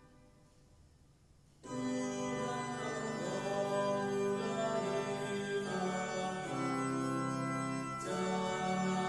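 Organ playing slow, sustained chords, coming in about two seconds in after a near-quiet pause and changing chord twice near the end: accompaniment for a sung psalm.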